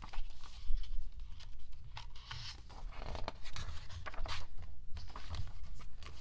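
Paper and plastic packaging being handled: irregular rustling, crinkling and light clicks, with a sharper click about a second in, as album inclusions such as a folded poster are taken out.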